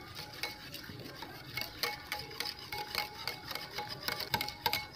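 Whipping cream being beaten by hand with a wire balloon whisk in a glass bowl: a rapid, uneven run of clicks as the wires strike the bowl, some followed by short ringing tones from the glass.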